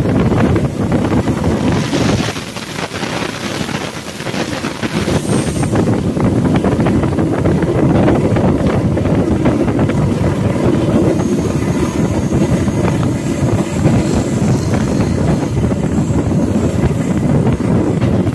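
Passenger train running at speed, a steady loud rush of wheel-on-rail rumble mixed with wind noise on the microphone. It eases off for a moment about two seconds in, then carries on as before.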